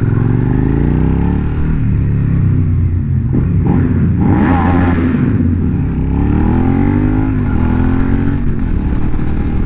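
2019 Suzuki SV650X's V-twin engine through its Yoshimura exhaust, revving hard under acceleration: the pitch climbs, then drops at each gear change, several times over. Deep-toned low in the revs, with a harsher, louder stretch about four to five seconds in.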